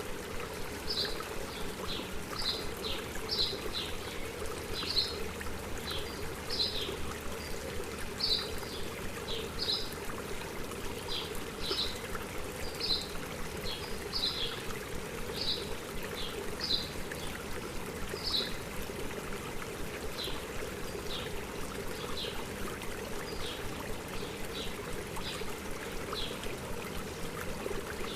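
A stream running steadily, with birds chirping in short high notes, one or two a second, thinning out near the end.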